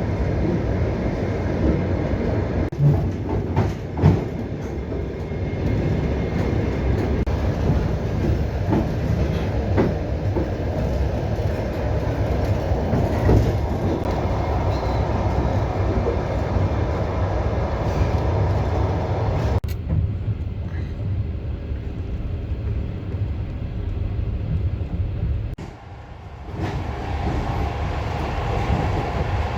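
Passenger train rolling along the rails, heard from inside a carriage: a steady low rumble of wheels on track with scattered clicks and knocks. About twenty seconds in the sound turns duller, and a few seconds later it dips briefly.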